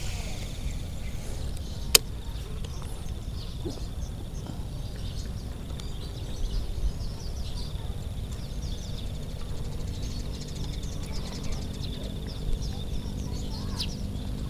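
Outdoor marsh ambience: scattered bird chirps and a steady high-pitched buzz over a low rumble, with a single sharp click about two seconds in.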